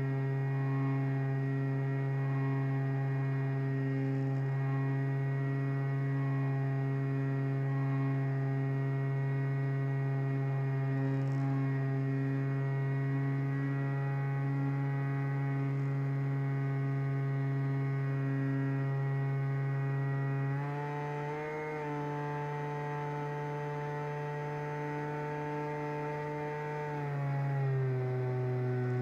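The FPV wing's electric motor and propeller running at a steady throttle, heard from on board as a constant motor whine with a buzz. About two-thirds of the way through the pitch shifts, and near the end it glides down as the throttle is eased.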